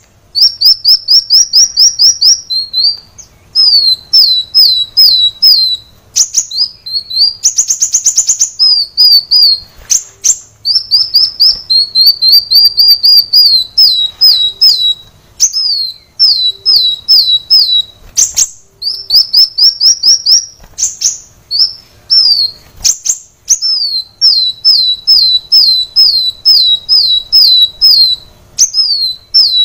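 Kolibri wulung sunbird singing: fast, high-pitched phrases of repeated sweeping notes, several per second, separated by short pauses, with a brief buzzy trill about eight seconds in.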